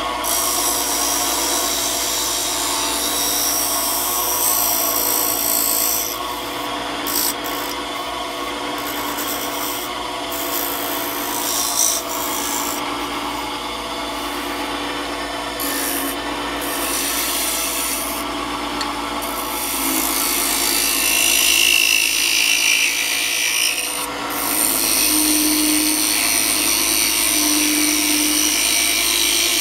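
Wood-turning lathe running steadily while a small hand-held turning tool cuts a spinning wooden bobbin's flange. The cutting comes in several stretches of scraping hiss that start and stop over the motor hum.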